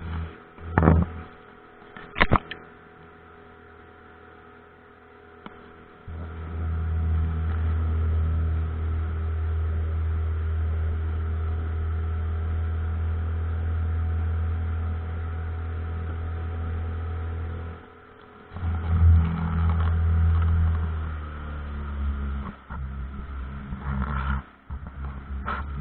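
Pontoon boat's outboard motor running with a low, steady hum. A few sharp knocks and a quieter lull come first; about six seconds in it comes up loud and steady, dips briefly near eighteen seconds, and runs unevenly with a few knocks near the end.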